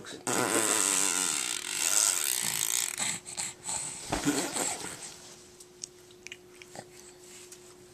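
A baby blowing a wet, buzzy raspberry with its lips for about three seconds, the parent's 'fart jokes', then a short vocal noise about four seconds in. The rest is quieter, with a faint steady hum.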